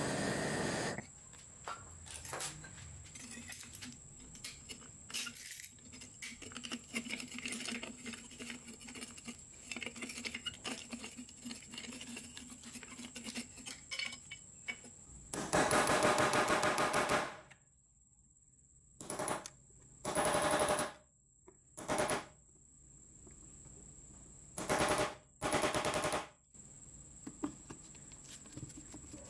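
Torch hiss cutting off about a second in, then light clinking and scraping of metal as the rusted wheel guard of the Hitachi G13S1 grinder is worked loose by hand. From about halfway through, a powered driver rattles in several short, loud, rapid bursts, loosening the screws of the grinder's gear housing.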